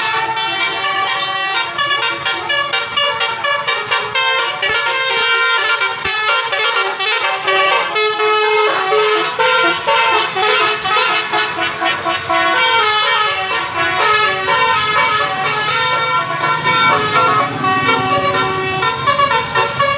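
Bus 'telolet' horn: a multi-trumpet horn playing a rapid melody of short notes that step up and down, repeating over and over. A bus engine rumbles underneath in the later part.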